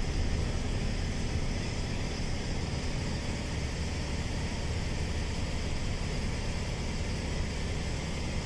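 Steady cabin noise of a moving bus: a low drone of engine and road with a fainter hiss above it, unchanging throughout.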